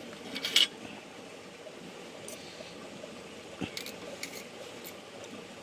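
A few light clinks of utensils against dishes while food is served, the sharpest about half a second in and a few softer ones later.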